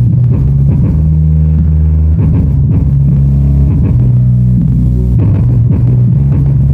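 A bass-heavy song played loud through two subwoofers driven by an STK4141 stereo amplifier, with deep held bass notes and a steady beat.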